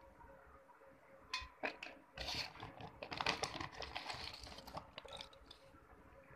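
Wet slate pencils and bars clicking and crunching as they are handled: a few sharp clicks, then a dense run of clicks and crackle from about two seconds in, fading out about a second before the end.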